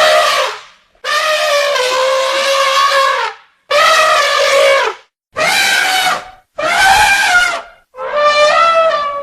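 Elephant trumpeting: a run of loud calls, each about a second long, the longest about two and a half seconds, with short gaps between them.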